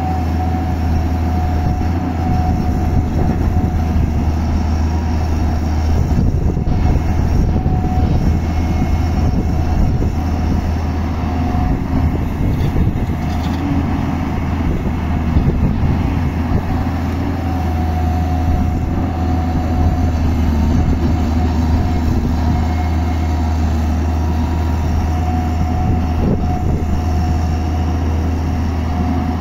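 JCB tracked excavator's diesel engine running steadily under working load as it digs and swings soil into a tipper truck, with a deep steady hum and a whine on top that comes and goes every few seconds.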